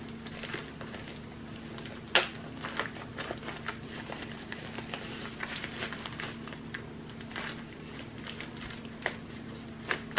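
Plastic bubble-wrap mailer crinkling and crackling as hands pull at and peel the tape on its sealed end. Scattered sharp crackles come throughout, the loudest about two seconds in.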